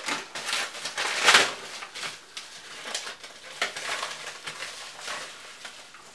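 White mailing envelope being pulled open and handled, crinkling and crackling, loudest a little over a second in, then fainter rustling.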